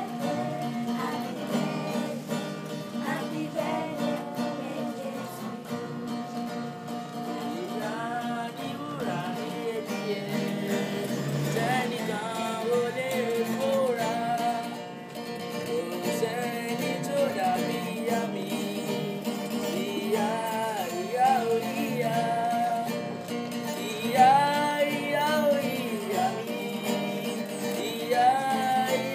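A group of children singing a song to instrumental accompaniment.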